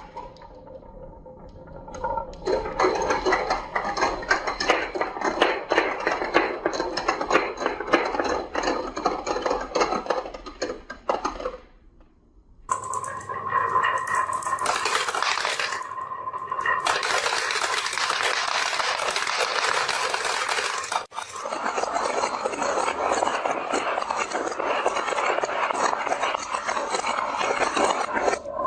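Marbles rolling and clattering down a wooden marble run: a dense run of clicks and knocks that drops away briefly about halfway through. After the break the sound turns noisier, with a steady tone for a few seconds.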